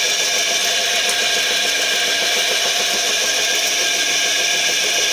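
Briquette making machine running steadily: its 5 hp electric motor drives the belt-driven screw press as it extrudes briquette logs. A continuous mechanical drone, even throughout.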